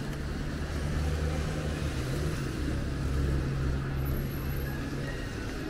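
Street traffic: a motor vehicle's engine running steadily with a low hum, which fades out about five seconds in.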